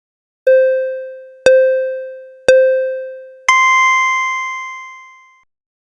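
Electronic countdown beeps: three identical lower beeps a second apart, each fading away, then a higher, longer final beep about an octave up.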